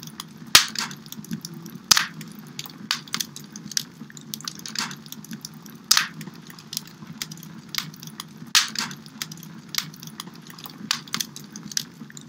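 Sound-library recording of a medium wood fire crackling, played back in a DAW: irregular sharp pops and snaps of varying loudness over a steady low rumble.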